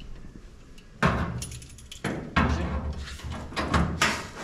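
Reproduction sheet-metal fender skirt being pushed and knocked into place against a 1962 Impala's reproduction quarter panel: three metal clunks about a second and a half apart, each ringing on briefly.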